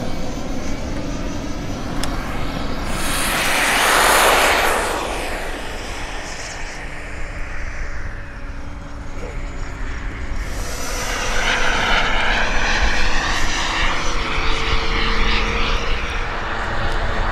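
Propeller-driven radio-control aerobatic model airplane flying overhead: the sound swells as it passes by about four seconds in. In the second half the motor's whine wavers up and down in pitch.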